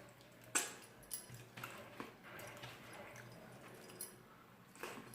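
Close-up eating sounds: wet chewing and lip smacks, with a handful of sharp clicks, the loudest about half a second in.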